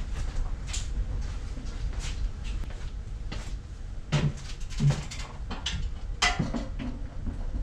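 Knocks, taps and scrapes from the casing of a Stiebel Eltron tankless electric water heater as it is handled and hung on screws in the wall, with a metal folding chair shifting underfoot. The loudest thumps come about four and five seconds in and again near six seconds.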